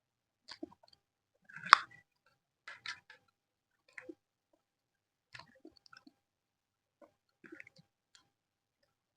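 Close-up eating sounds: chewing paratha with soft wet mouth smacks and clicks, a loud sharper smack about two seconds in, and quieter smacks spaced out after that.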